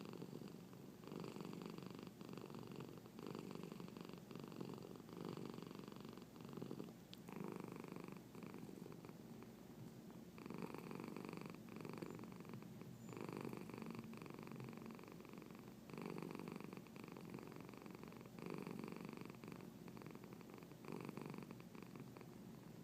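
A domestic cat purring steadily. The purr swells and eases in a regular cycle about every two and a half seconds as she breathes in and out.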